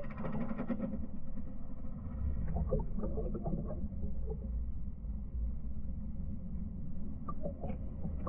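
Muffled underwater sound picked up by a camera held in the sea beside a grey whale: a steady low rumble of water and boat noise, with scattered short crackles and a brighter burst in the first second.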